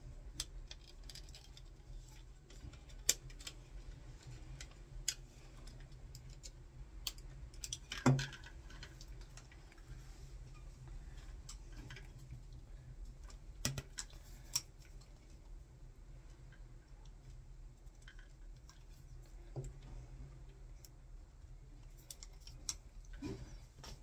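Scattered small clicks and taps of hand electrical work: a screwdriver, copper wires and a plastic light-switch plate being handled at the terminals. A few sharper ticks stand out, the loudest about eight seconds in, over a faint low hum.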